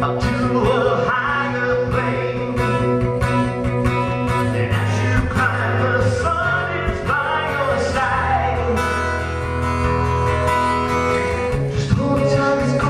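A male singer singing into a microphone over acoustic guitar accompaniment.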